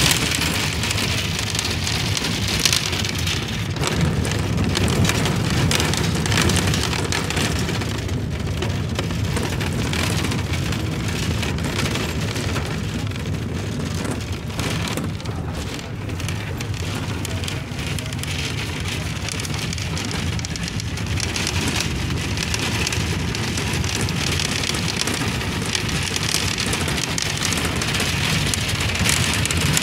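Bus interior while driving: a steady engine and road rumble with dense rattling of the windows and body panels.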